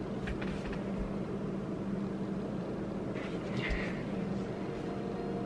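Steady low hum of background room noise, with a few faint clicks.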